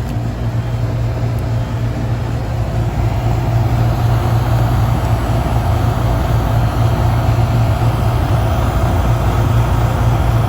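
2005 Carrier Comfort 10 central air conditioner condensing unit running: the Bristol compressor's steady low hum under the even rush of the condenser fan.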